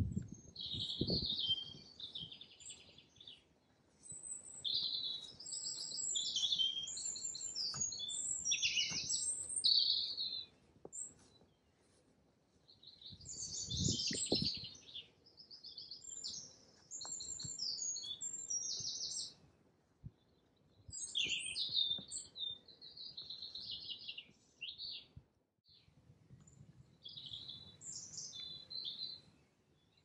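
Songbirds singing: repeated high, fast-trilled phrases of two to three seconds each, with short pauses between. A few soft low thumps come under the song near the start and about fourteen seconds in.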